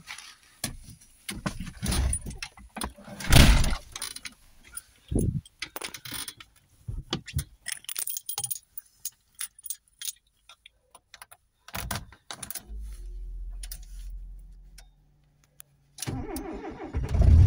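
Keys jangling with clicks and knocks of handling in the car, then a low hum for a couple of seconds. Near the end the starter cranks the 1988 VW Golf Mk2's 1.3-litre four-cylinder petrol engine from cold, at −9 °C, and it catches and starts loud at the very end.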